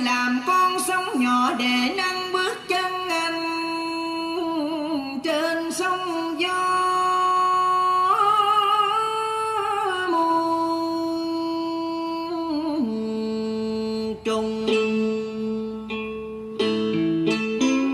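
A singer performing a Vietnamese ca cổ-style song over a karaoke backing track of plucked strings, holding long notes with wide vibrato. Near the end, plucked string notes come forward.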